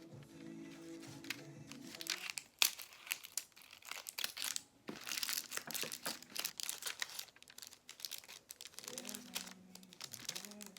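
Crinkly packaging wrap rustling and crackling in irregular bursts as it is handled, over background music.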